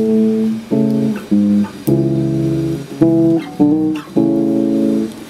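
Acoustic guitar playing a run of chords, each struck sharply and left to ring before the next: the instrumental lead-in before the vocals.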